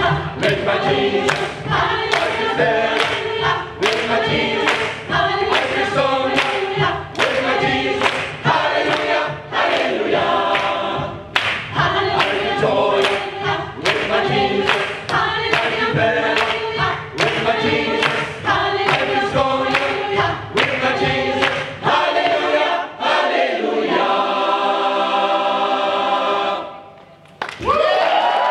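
Gospel choir singing a cappella in harmony over a steady beat of handclaps, ending on a long held chord that cuts off sharply near the end.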